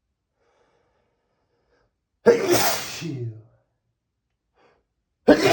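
A person sneezing: one sudden, loud sneeze about two seconds in that trails off in a falling voice, and a second sneeze starting right at the end. Allergic sneezing set off by perfume sprayed under the nose.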